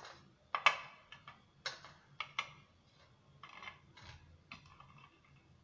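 Light, irregular clicks and taps, about eight of them, as Monaco crackers are picked one at a time off a steel plate and set down on a paper plate.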